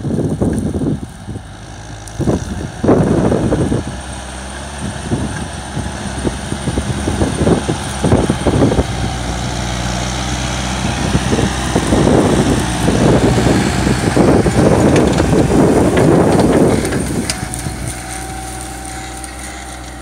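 Claas Celtis 456 RC tractor's diesel engine working under load pulling a mounted plough through stubble, with irregular bursts of rushing noise. It gets louder as the tractor comes close, then eases off near the end.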